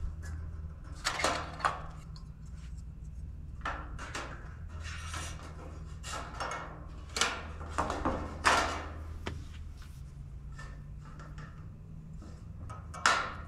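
Galvanized steel gutter and its metal hangers being handled and fitted by hand: scattered clinks, scrapes and rubs of sheet metal, with a sharper clack about half a second before the end.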